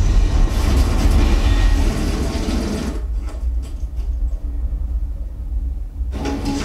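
Deep, heavy explosion rumble from a film soundtrack. For about the first three seconds it is broad and loud. After that the higher part drops away and only the deep bass rumble goes on, until music comes back in near the end.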